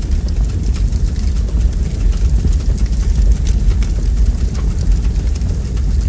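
Wood logs burning in a fireplace: a deep, steady rumble under scattered sharp crackles and pops.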